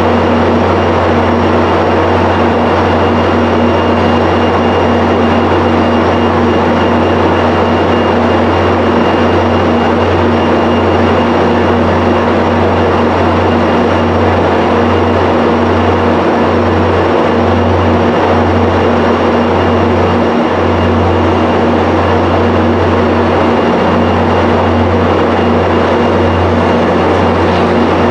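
MBTA push-pull commuter train moving slowly past, pushed by an EMD/MPI F40PH-3C diesel locomotive. Its engine gives a loud, steady drone with a deep hum that does not change.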